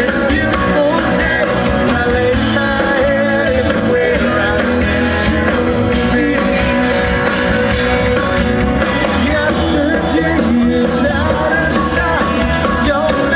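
Live country band playing loud amplified music on electric guitars.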